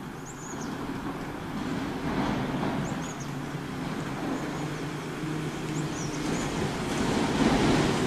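Steady low rumbling noise with a faint hum, growing louder toward the end, and four brief groups of short, high chirping bird calls.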